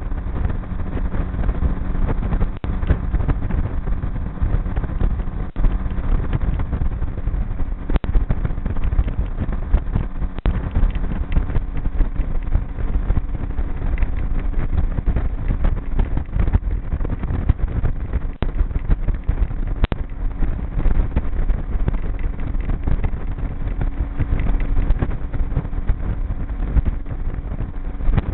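Motorboat engine running steadily underway, with a steady low drone and wind buffeting the microphone.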